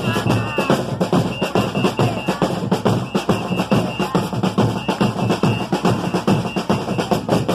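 Samba percussion band playing a fast, dense drum groove with a heavy bass drum under rapid snare and hand-percussion strokes, and short repeated high notes over the top.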